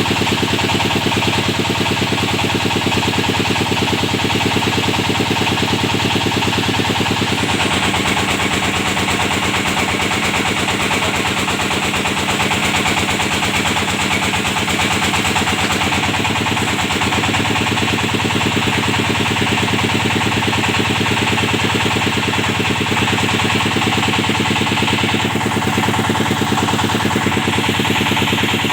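Engine of a hydraulic well-drilling machine running steadily under load, with a rapid, even chugging; its low tone shifts about seven seconds in.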